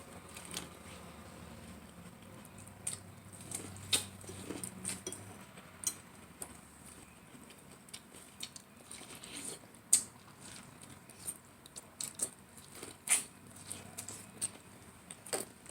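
Close-up eating sounds: chewing and mouth smacks over a mouthful of spaghetti, with irregular sharp clicks, the loudest about ten and thirteen seconds in.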